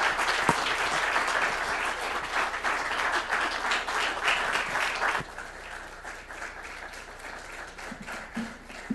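Audience applauding, which falls off sharply about five seconds in to a few faint scattered claps.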